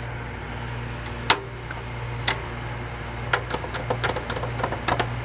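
Sharp clicks and taps of handling parts inside an open desktop computer case, around the metal drive cage and SATA cables: a single click about a second in, another near two seconds, then a quick scattered run of them in the second half. Under them runs a steady low hum from the running computer.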